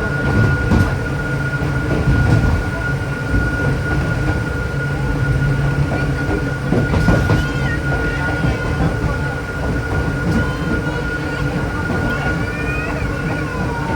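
Hakone Tozan Railway Moha 2 electric railcar running uphill, heard from inside the lead car: a steady rumble of motors and wheels on the rails with a constant high whine, occasional clicks, and a few short high wheel squeals near the end.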